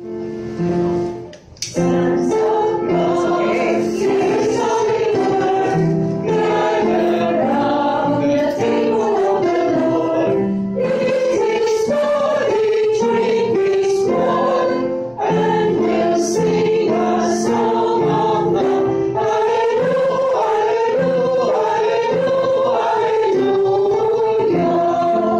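Choir singing a church song in rehearsal, several voices together holding sustained sung notes, with a brief break about a second and a half in.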